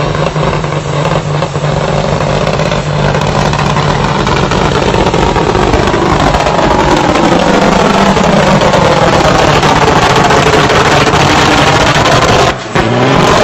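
Straight-piped turbodiesel engine of a Peterbilt semi truck running hard through a burnout, loud and continuous over the hiss of spinning tyres. About halfway through the engine note dips and climbs again, and the sound breaks off briefly near the end.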